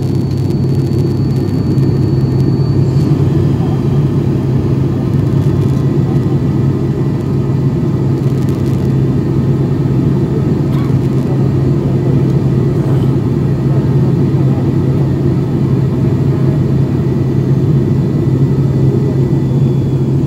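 ATR 72 turboprop engines and propellers heard from inside the passenger cabin during the approach to landing: a steady low hum over a constant rushing drone.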